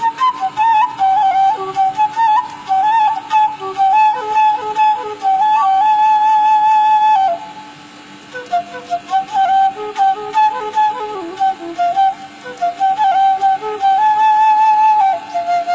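Bamboo flute (seruling) playing a slow, ornamented melody with trills and slides between notes, pausing briefly about seven seconds in before the tune resumes. A faint steady low tone sits underneath.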